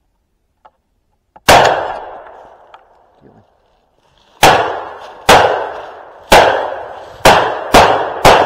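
Shotgun fired seven times: one shot about a second and a half in, then six more in quick succession over the last four seconds, each loud report followed by a fading echo.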